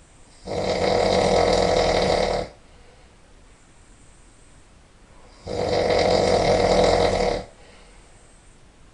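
A person snoring really loud: two long snores of about two seconds each, about five seconds apart.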